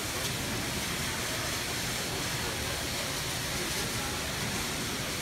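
Indistinct chatter of many people over a steady hiss of background noise, with no one voice standing out.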